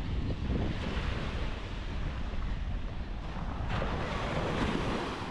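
Wind buffeting the microphone over surf washing onto a sandy beach in stormy weather: a constant low rumble with rushing swells about a second in and again past the middle.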